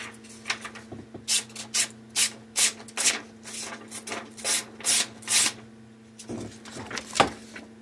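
A knife blade stroked quickly across a sharpening stone, about a dozen gritty strokes at two to three a second, then a pause and one more stroke near the end.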